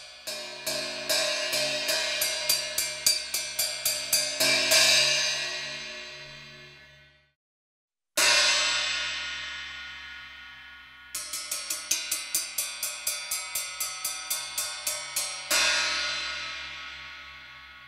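A 14-inch hi-hat struck with a drumstick, about four strokes a second, each run ending in a louder hit that rings down. It is played twice, first as it was before the repair, then a second time after the cracks in the top cymbal were drilled out, leaving round holes.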